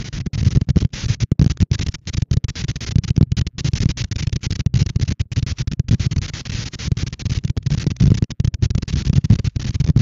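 Strong wind buffeting the outdoor nest-cam microphone: a steady, low-heavy wind noise broken by many brief drop-outs.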